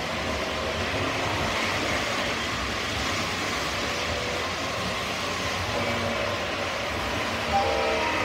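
O scale model trains running on the layout: a steady rumble and whir of wheels on track and electric motors as a passenger train passes. Near the end there is a brief sharp sound followed by a short stepped tone.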